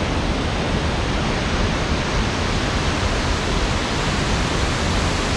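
Loud, steady roar of a large waterfall, an unbroken rush of falling water.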